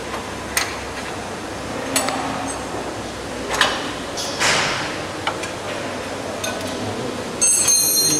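Metal hand tool clicking and clinking against the terminal block and box of an electric motor, in a few separate taps, with a louder metallic scrape that rings near the end. Steady workshop noise runs underneath.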